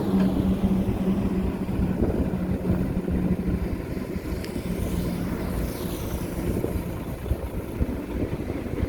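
Heavy diesel earthmoving machinery running: a steady engine drone over a low rumble, easing off after about three seconds.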